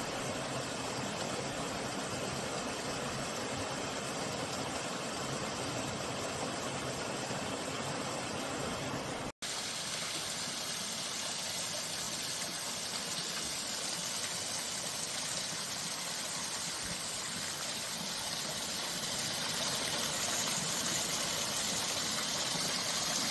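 Valley stream running as a steady rush of water. About nine seconds in the sound drops out for an instant and comes back brighter and hissier, slowly growing a little louder.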